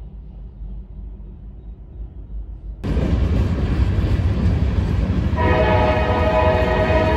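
A train's heavy rumble jumps suddenly from quiet to loud about three seconds in. Past the middle a locomotive air horn sounds a steady chord of several tones over it and holds to the end.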